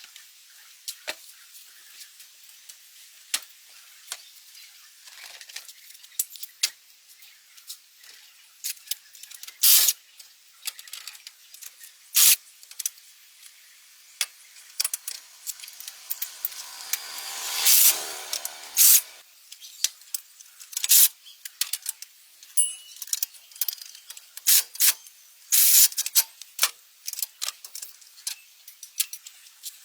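Light metallic clinks and taps of small metal parts being handled, scattered irregularly throughout. A hissing spray swells for about three seconds around the middle and then stops.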